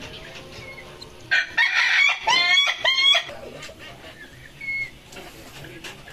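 A rooster crowing once, a loud call lasting about two seconds that starts about a second in.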